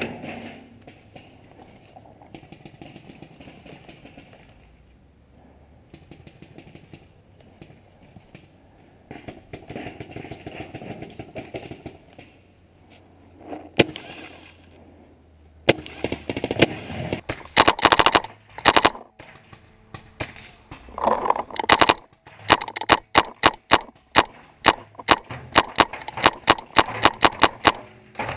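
Paintball markers firing rapid strings of shots, starting about halfway through and coming thicker and faster toward the end, several shots a second. The first half is much quieter.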